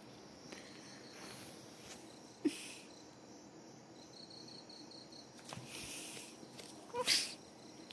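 A kitten playing on carpet and a fabric mat: its paws scuffle and scrape, with a short sharp scrape about two and a half seconds in and a louder scuffle near the end. A faint high chirping pulses briefly in the background.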